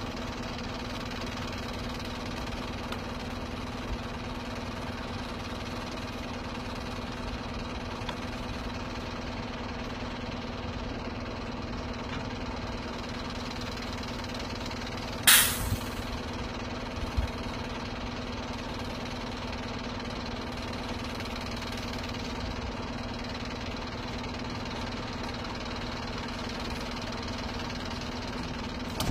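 Timber truck's diesel engine idling steadily with a constant drone. About halfway through, a short, sharp hiss of released air, followed by a couple of light knocks.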